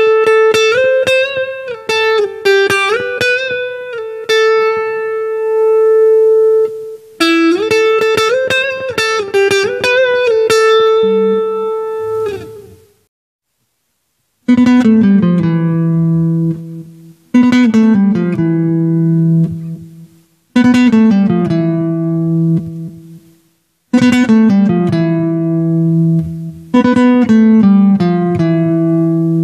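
Electric guitar on a clean tone playing a single-note dangdut lead fill, with bends and slides, in short phrases separated by pauses. The later phrases repeat a descending run that ends on a held low note.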